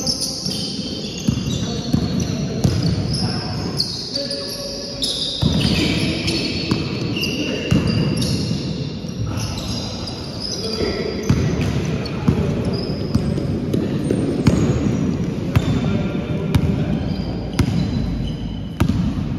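Indoor basketball game: the ball bouncing on the wooden court, with sneakers squeaking in short high squeals and players calling out, all echoing around the sports hall.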